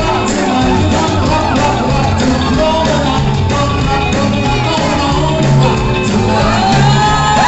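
Rock and roll song playing loudly with a steady beat and a sung vocal. Near the end a voice whoops over it in a long rising-and-falling cry.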